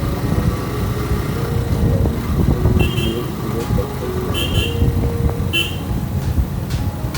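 Road noise on a moving motorcycle: a steady low wind-and-engine rumble, with short high horn beeps three times in the middle.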